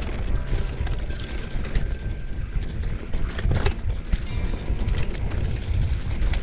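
Mountain bike descending a rough dirt trail: wind rumbling on the mic with frequent clattering knocks and rattles from the bike over bumps.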